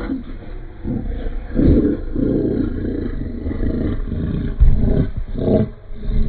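Slowed-down audio of a slow-motion clip: deep, drawn-out, low-pitched rumbling sounds in uneven surges, loudest at about a second and a half in and again near five seconds in.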